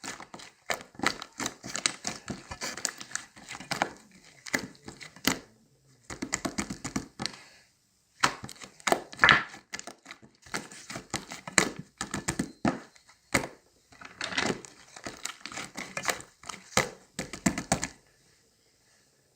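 Crinkling and crackling of something being handled, in irregular bursts with short pauses; it stops near the end.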